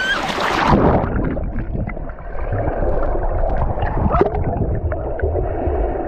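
Water heard through a camera microphone that goes under the surface about a second in: the sound turns suddenly muffled, with the high end cut away, leaving a low churning rumble and gurgling bubbles.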